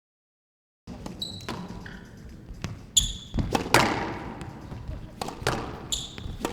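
Squash rally: the ball cracking off rackets and the court walls, mixed with short squeaks of players' shoes on the court floor. The sound begins about a second in after silence, and the loudest strikes come around the middle.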